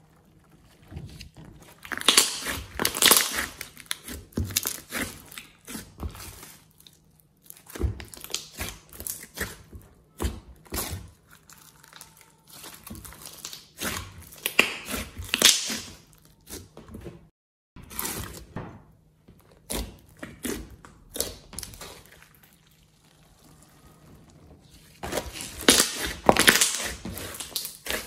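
Slime being stretched, squeezed and kneaded by hand, with wet squelches and irregular clusters of sharp crackles and pops.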